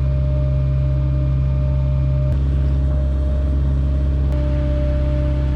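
Vehicle engine running with a steady low drone and a few higher steady tones. The tones shift abruptly twice, about two and four seconds in.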